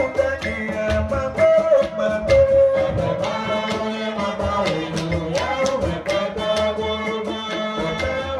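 Live Gohoun music: a voice singing a sustained melody over a steady beat of percussion, played through microphone and loudspeakers.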